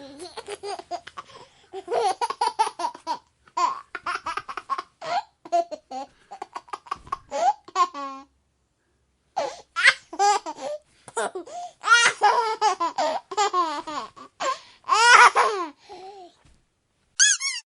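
A baby laughing in repeated bursts of high-pitched giggles, breaking off for about a second around the middle, then carrying on.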